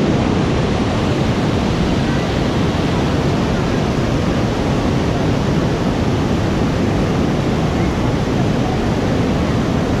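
A rain-swollen waterfall cascade of muddy water rushing over rock ledges and around boulders: a loud, steady wash of white water. The flow is high and silt-laden from rainy-season runoff.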